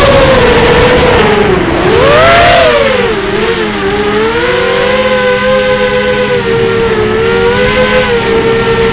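FPV quadcopter's electric motors and propellers whining. The pitch slides down, swoops up and back down about two seconds in, then holds steadier with small wavers as the throttle changes.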